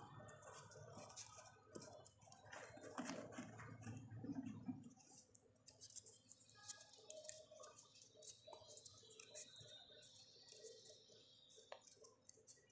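Near silence with faint, scattered ticks and rustles of folded paper units being slotted together in 3D origami assembly.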